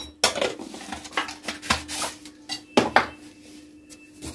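Metal spoon scraping and clinking against a steel bowl while mixing spices into mashed potato, in a quick irregular run of knocks that thins out in the last second.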